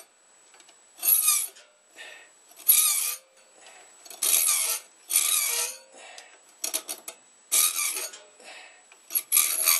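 Hand file cutting metal in separate push strokes, about seven strokes a second or so apart, with a few short taps in between. The file has teeth on its edge, so it cuts sideways as well as down, widening a filed notch.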